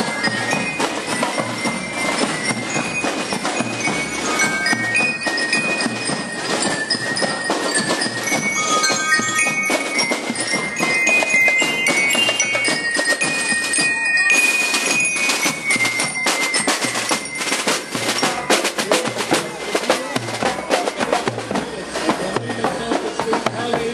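Marching drum and lyre band playing: bell lyres ring out a stepping melody over a steady beat of drums. The drumming comes to the fore about halfway through.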